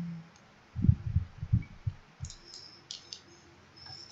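Hands handling a small object at a table: a run of dull thumps for about a second, then a few light, sharp clicks.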